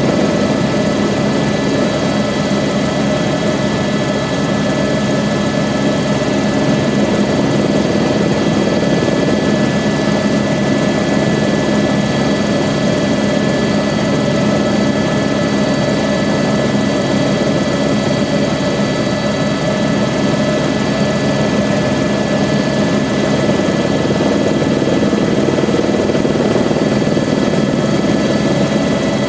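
Airbus H125 (AS350 B3e) helicopter in flight, heard from inside the cabin: a steady drone of rotor and Arriel turboshaft engine with a constant high whine over it.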